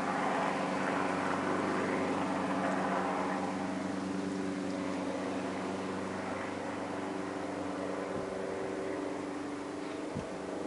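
Helicopter flying overhead, a steady drone of rotor and engine that is loudest in the first few seconds and then slowly fades.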